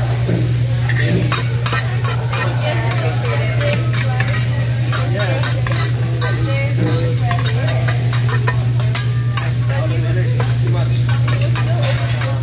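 Metal spatulas scraping, chopping and clicking against a steel teppanyaki griddle as a heap of fried rice is turned, over the steady sizzle of the rice frying. A steady low hum runs underneath.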